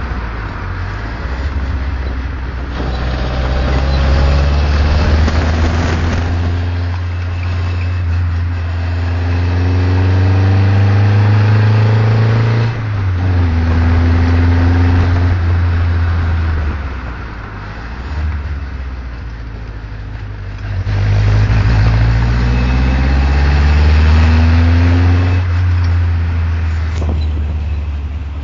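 Lotus Seven's engine heard from its open cockpit, pulling hard with rising revs, a sudden gear change about thirteen seconds in, easing off and dropping in pitch, then accelerating again, with wind rushing past.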